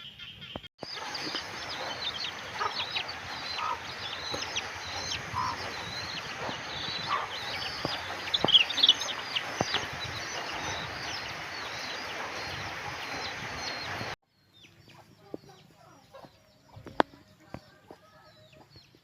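A flock of free-range chickens clucking and calling over a dense, steady haze. About two-thirds of the way through, the sound cuts off abruptly to a much quieter stretch with sparser calls.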